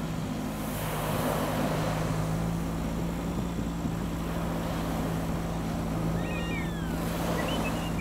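Steady low hum of an idling vehicle engine under surf washing onto the beach, the surf swelling about a second in and again near the end. A few short bird calls come in around six to seven seconds in.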